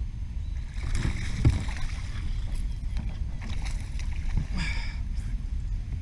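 Water splashing and sloshing with a few sharp knocks as a hooked bass is fought and brought to the boat. A steady low rumble sits underneath, with the loudest splashing about a second in and again near the end.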